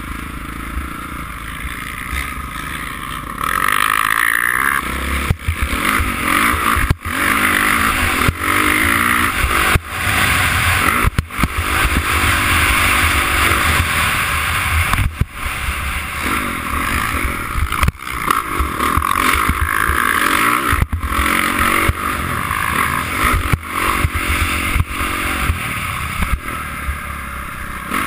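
Honda CRF450 dirt bike's single-cylinder four-stroke engine pulling away and running hard around a motocross track, heard from a helmet-mounted camera. It gets louder about three and a half seconds in, with frequent short drops in level.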